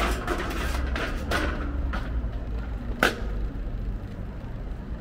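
City street traffic noise, a steady low rumble, with brief rattles in the first second and a half and one sharp click about three seconds in.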